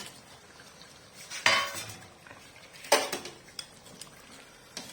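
Metal utensil knocking and scraping against a metal cooking pot, most likely while the fried chicken leg pieces are tipped in. There are two loud ringing clanks about a second and a half apart, with lighter taps between.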